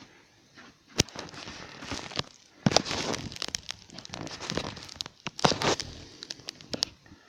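Crinkling, rustling scuffles broken by many sharp clicks and scrapes, busiest a few seconds in and again past the middle.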